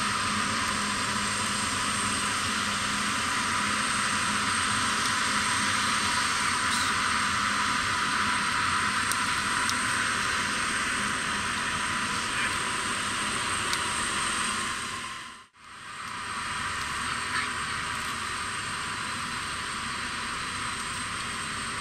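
Antonov An-124-100 on the ramp with its turbines running: a steady high whine over a broad hiss. The sound cuts out briefly about two-thirds of the way through, then resumes slightly quieter.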